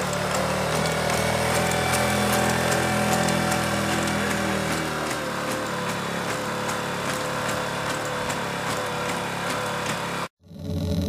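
Boston Dynamics LS3 legged robot's engine running with a steady, high drone as the robot walks, with faint regular clicks through it. The sound cuts off suddenly near the end.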